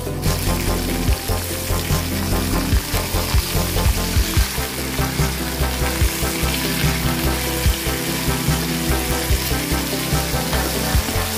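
Thin pork slices sizzling steadily as they fry in oil in a pan, with metal tongs turning them over. Background music plays underneath.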